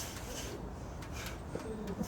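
A person breathing heavily, with quick, noisy breaths about one a second, and a faint voiced sound on a breath near the end.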